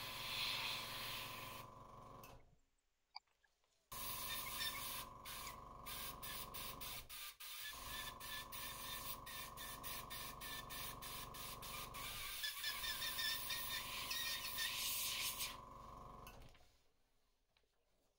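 Airbrush spraying paint: a steady hiss of air over a steady motor hum. It cuts out about two and a half seconds in, comes back a second later, and stops near the end.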